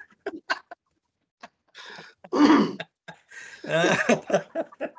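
A person's short non-speech vocal bursts, a few of them, the loudest about halfway through and another soon after, heard over a video-call connection.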